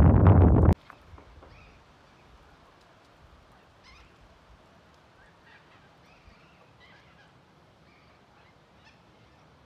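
Wind buffeting the microphone, which cuts off abruptly under a second in; then a quiet background with faint, scattered bird calls.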